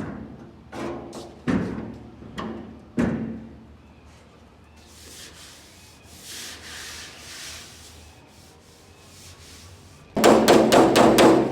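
Hand bodywork on a car door's steel panel: a few separate knocks, a stretch of rubbing on the metal, then a loud rapid run of about eight taps near the end.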